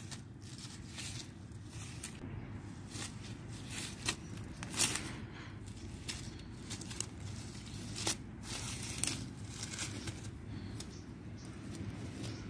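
Dry fallen leaves and grass rustling and crackling as a cat paws and pounces in them: a run of short crackles, a few sharper ones near the middle, over a low steady rumble.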